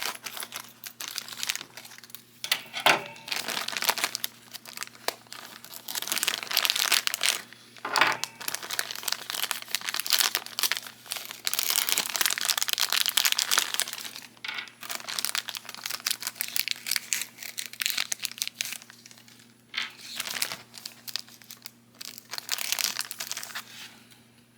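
Packaging crinkling and rustling in irregular bursts with short pauses as the pieces of a collectible figure are unwrapped.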